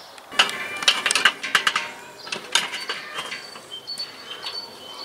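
Stainless-steel rotisserie spit clattering against the steel rotisserie ring of a kettle grill as it is set into its mounts: a quick run of sharp metallic clicks and clanks in the first two seconds, then lighter, scattered clinks and scrapes.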